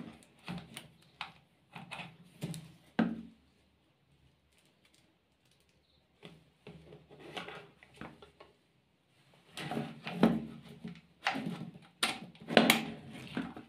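Short plastic clicks and knocks from handling an HVLP paint sprayer's plastic motor housing and corrugated air hose while the hose is fitted. They are irregular, with a quiet pause in the middle and a busier run near the end.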